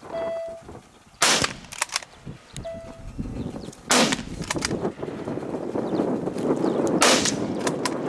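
Three loud gunshots from a hunting gun, about three seconds apart, each followed by a few fainter cracks.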